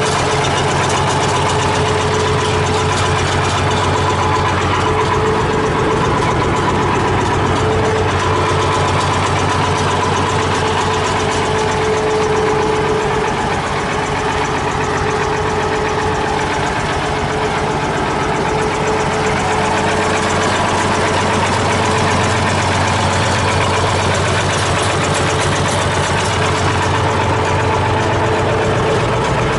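Farmall 706 tractor engine idling steadily.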